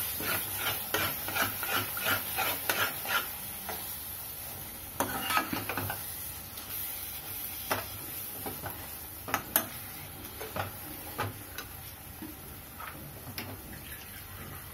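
Steel spatula scraping and knocking against a steel kadhai while mashing and stirring thick vegetable bhaji into the masala, over a steady sizzle from the pan. The strokes come quickly, about three a second, for the first few seconds, then slow to occasional sharp knocks.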